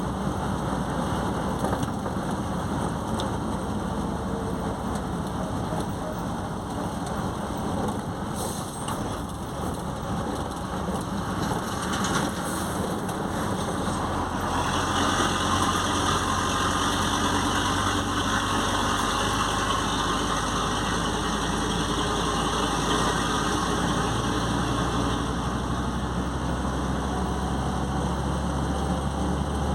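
Mercedes-Benz OM 449 diesel truck engine running steadily. About halfway through it gets louder and more even, with a hissing, higher-pitched layer added over a steady low tone.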